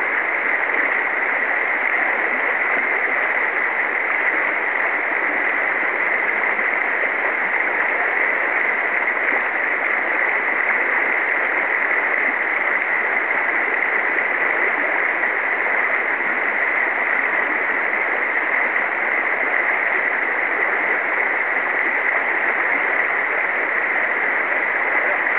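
Steady rush of river current running over a shallow riffle, an even noise that does not change.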